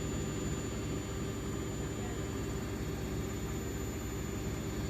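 Hoover Dynamic Next DXC C49W3 washing machine (9 kg, 1400 rpm) running with a steady, even whir and hum. It is loud, nearly 80 decibels, which the owners find too noisy for a washing machine.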